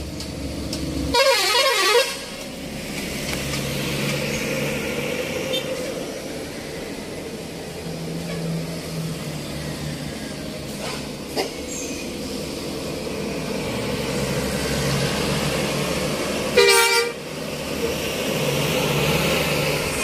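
Tour bus telolet basuri musical horn playing a short warbling tune about a second in, then a second brief multi-note blast near the end. Between the two, bus engines run as the buses pass.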